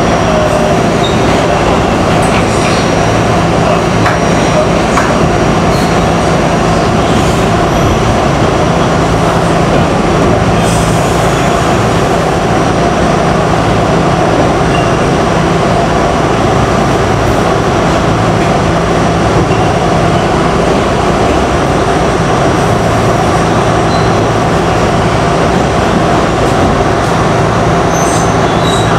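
R68 New York City subway car running through a tunnel at steady speed, heard from inside the car: a loud, steady rumble of wheels on rail with a constant hum and occasional light clicks.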